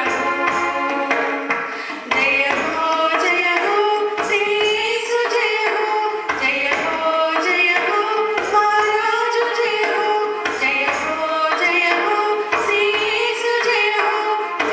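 A small group of women singing together into microphones, with a melodic line held and gliding over a steady rhythmic percussion accompaniment.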